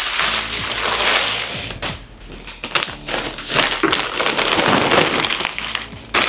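Plastic packaging crinkling and rustling as it is handled, with many small crackles, loudest about a second in and again between four and six seconds in.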